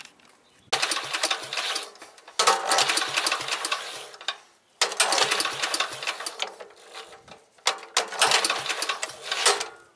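Ransomes Matador mower's JAP single-cylinder engine being started four times in a row: each attempt it turns over with a rapid clatter for a second or two, then dies away without running on.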